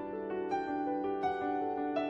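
Background music: soft piano notes played one after another at an even pace.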